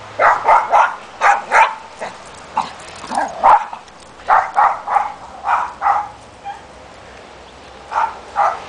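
Dog barking in play while dogs chase each other: about fifteen short barks in quick runs of two to four, with a pause of a second or so before two last barks near the end.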